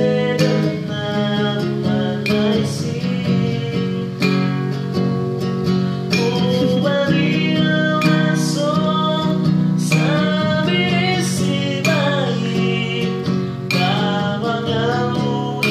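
A man singing a slow song while strumming chords on an acoustic guitar, a strum about every two seconds.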